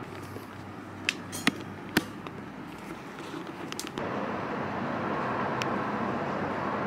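Quiet indoor room tone with a few sharp clicks and taps on a tiled floor. About four seconds in, it cuts to a louder, steady rush of background noise with one more click.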